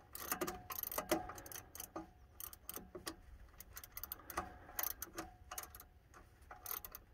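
Ratchet wrench clicking in short irregular runs as a 10 mm belt-tensioner adjusting screw is backed off a few turns, so the screw no longer sits under tension.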